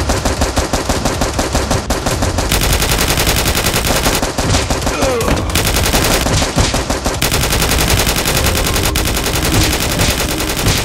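Rapid automatic gunfire sound effects, near-continuous bursts of machine-gun fire dubbed over toy-blaster shooting.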